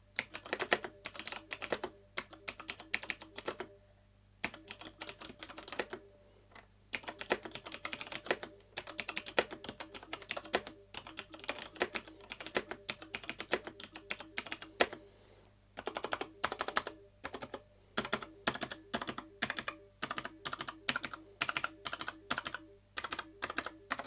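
Typing on a Cherry MX 2.0S full-size mechanical keyboard with tactile Cherry MX Brown switches: fast runs of slightly damped key clicks, broken by a few short pauses.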